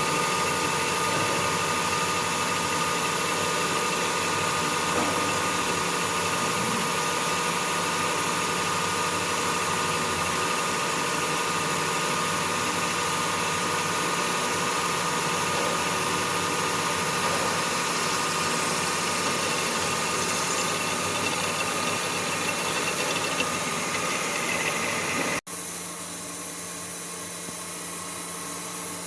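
Metalworking machine tool running steadily, its motor and gearing giving a constant mechanical hum with a hissy background. It drops out for an instant about 25 seconds in, then runs on slightly quieter.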